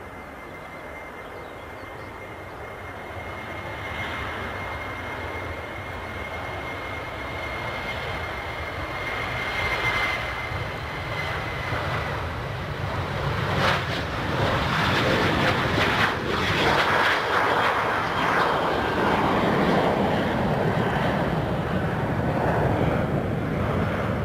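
Jet airliner's engines passing, growing steadily louder and staying loud for the last ten seconds. A thin high whine rides on top early on and dips slightly before fading about halfway through.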